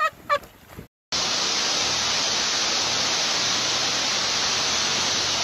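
Heavy rain pouring down on a flooded street, a loud, even hiss that starts suddenly about a second in and holds steady. A short burst of voice comes just before it.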